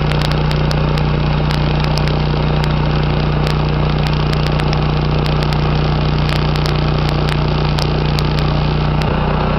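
MIG welding arc from a Lincoln Electric MIG 140 HD running solid wire on a vertical-up pass: a steady hum under continuous crackling, with irregular sharp pops of spatter.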